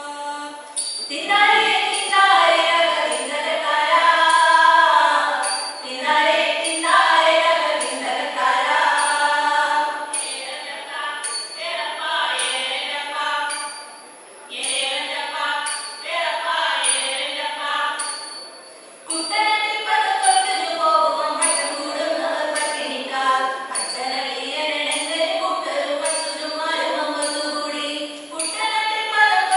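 A group of women singing a Malayalam folk song (nadan pattu) together, in phrases, with two brief pauses partway through.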